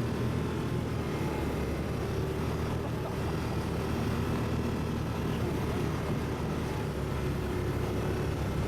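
ATV engine running steadily at an even pace, a constant low drone with no revving up or down.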